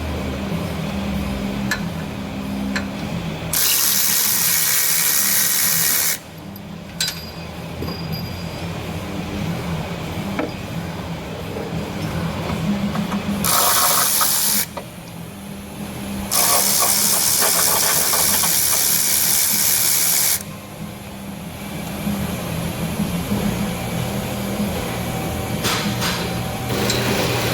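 Pneumatic air ratchet run in three bursts, its air exhaust hissing loudly, with ratchet clicks between the bursts, while loosening bolts.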